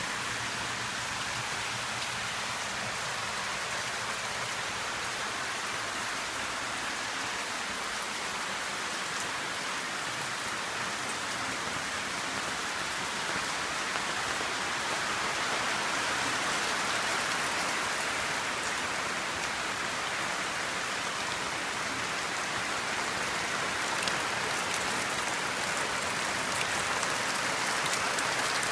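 Steady rain falling, a continuous even hiss with scattered drop ticks, getting slightly louder about halfway through.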